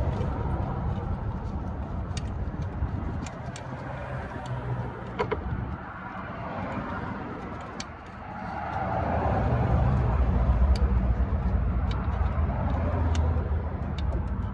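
Motor vehicle traffic rumbling past, growing louder about eight seconds in and staying up until near the end, with scattered light clicks.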